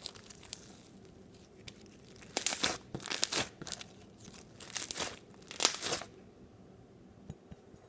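Homemade slime with broken-up foam packing peanuts mixed in, squished and stretched by hand, giving a few short crackly, crunching bursts.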